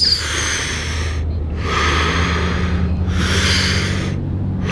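A man breathing forcefully through the mouth in Wim Hof method breathing: deep breaths in and out, each about a second long, one after another with short gaps. A low steady hum sits underneath from about halfway in.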